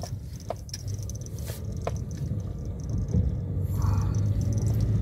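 A car rolling slowly over a rough, cracked concrete road, heard from inside the cabin: a steady low rumble of engine and tyres that grows a little louder about three seconds in, with scattered small clicks and rattles.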